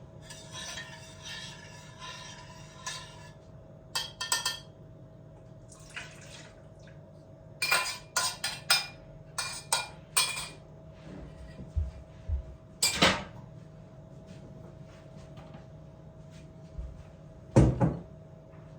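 Dishes and cutlery clinking and clattering in a series of sharp knocks and clinks, after a few seconds of steady hiss at the start; a heavier knock comes near the end.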